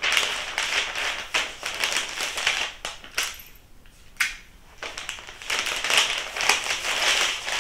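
Paper crinkling and rustling while an order is packed for shipping, in uneven spells with short pauses about three and four and a half seconds in.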